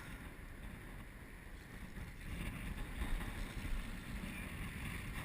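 Steady outdoor wind noise on the microphone with water in the background, a little louder about two seconds in.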